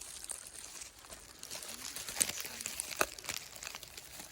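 Leaves and twigs rustling and crackling close to the microphone as bush branches are handled and pushed aside. There are sharper snaps about two and three seconds in.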